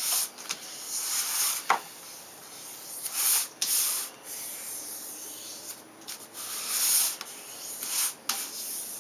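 Hands rubbing adhesive contact paper down onto a model wing half, pressing it around the edges in repeated rubbing strokes. One brief sharp sound stands out about two seconds in.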